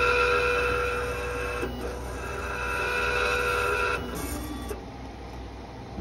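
K40 laser cutter's stepper motors whining as they drive the laser head along its rails in two runs of about two seconds each. A short lower-pitched move follows, and the motors stop about five seconds in. The head moving under computer control is the sign that the newly fitted Y-axis ribbon cable is carrying its signals.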